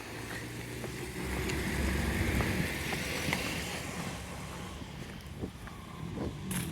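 A motor running steadily, its low hum shifting in pitch, with a sharp click near the end.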